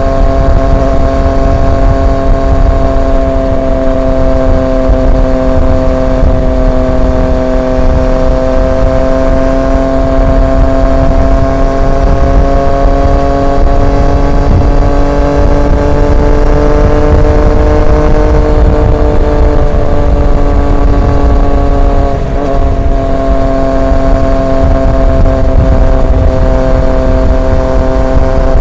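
Triumph Street Triple 765 RX's inline three-cylinder engine through an SC Project S1 exhaust, cruising at steady revs. The pitch rises gently and eases back again, with a brief break in the sound about two-thirds of the way through, all over a heavy low rumble.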